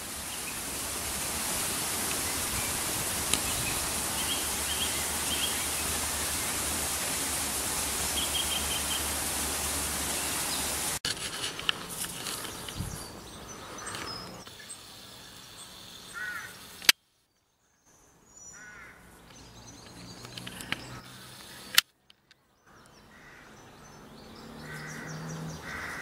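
Woodland ambience with a loud steady hiss for about the first ten seconds and a few short bird notes over it. After that come quieter stretches with scattered bird calls and chirps, broken by two brief dropouts to silence.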